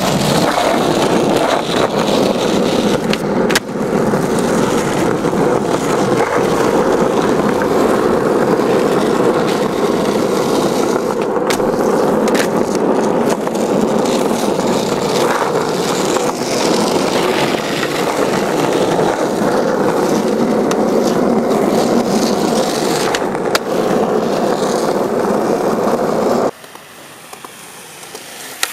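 Skateboard wheels rolling on asphalt: a loud, steady rolling noise with a few sharp clacks of the board. It cuts off suddenly about two seconds before the end, leaving a much quieter background.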